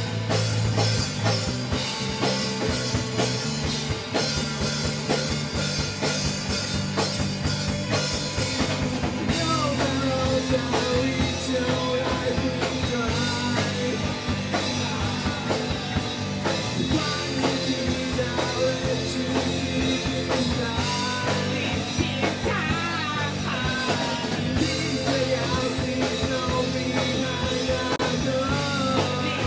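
A rock band playing live, led by a drum kit, with a singing voice joining in about ten seconds in.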